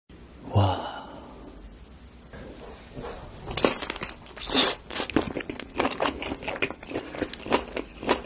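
Close-miked eating sounds of a large smoked sausage being bitten and chewed: crisp snaps of the casing and wet, clicky chewing, dense and irregular from about three and a half seconds in. A brief loud handling sound comes near the start.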